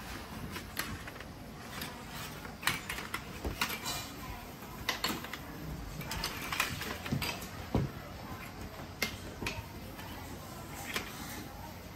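Irregular light clinks and rustles of fluted aluminium foil cups being moved and set down on a metal baking tray.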